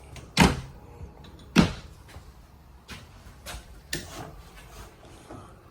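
RV kitchen cabinet doors being opened and shut: two sharp knocks, then several lighter clicks and taps.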